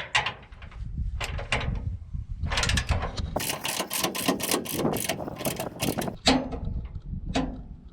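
Torque wrench ratcheting in a run of quick clicks as a tie-down bracket bolt is tightened to 40 lb-ft.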